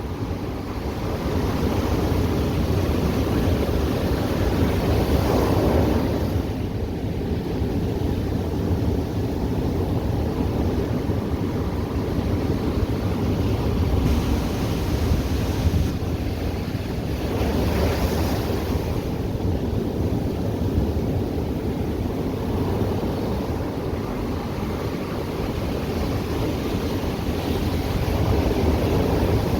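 Ocean surf washing onto the beach in a steady rush, with two bigger waves swelling and breaking about five and eighteen seconds in. Wind rumbles on the microphone underneath.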